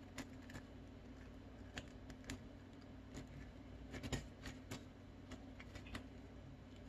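Faint, irregular small ticks and rustles of folded colored paper and a plastic drinking straw being handled by hand.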